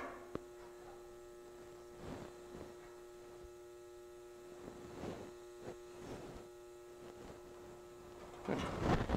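A steady electrical hum with a few faint scrapes and taps as stainless steel mesh grate is pressed into a slot in a sheet-metal hood side by hand; a louder brief rustle near the end.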